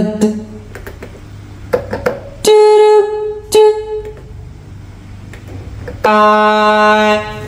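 Roland VA-7 arranger keyboard sounding a preset voice: three pitched notes, the first held under a second about two and a half seconds in, a short one just after, and a longer one with a low tone beneath it about six seconds in.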